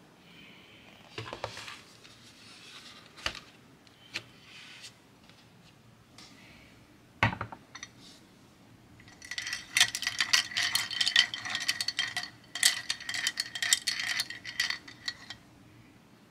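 Scattered light clicks and a sharp knock about seven seconds in, then about six seconds of rapid clinking with a ringing note: paintbrushes rattling against a glass clip-top jar.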